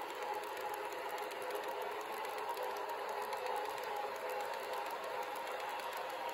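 HO scale model freight train of loaded hopper cars rolling past on model track: a steady rolling whir of small wheels on the rails with faint irregular ticking.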